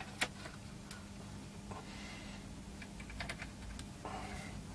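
Computer keyboard keys tapped in a few scattered, soft clicks, over a faint steady hum.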